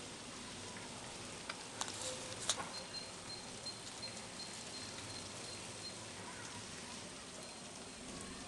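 Faint steady patter of rain during a night thunderstorm, with a few sharp clicks about two seconds in.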